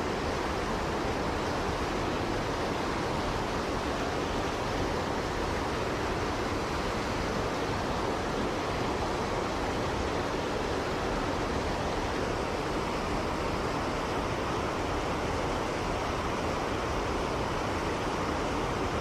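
Mountain stream rushing over rocks, a steady unbroken water noise.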